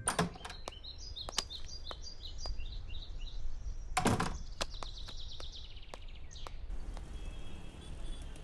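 Birds chirping in quick, repeated short notes, with a door thudding about four seconds in and a sharp knock at the very start. Near the end the chirping stops and a steady hiss takes over.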